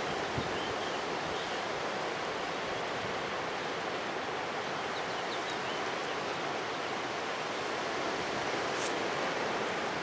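Windstorm winds of 50 to 60 mph rushing through bare trees, a steady surf-like noise with no let-up.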